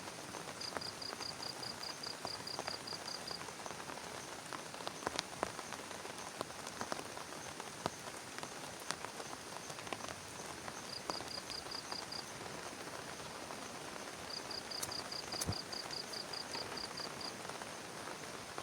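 Steady rain falling on a plastic tarp, with scattered sharp drop ticks. Twice, a rapid high chirping runs for a few seconds, about four or five chirps a second.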